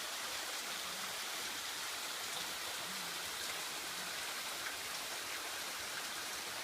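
Waterfall's water rushing steadily, an even hiss with no breaks.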